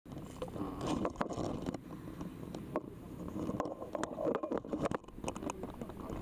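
Knocks, clatter and scraping of scuba gear as kitted-up divers shuffle through a dive boat's cabin, over a steady low rumble from the boat.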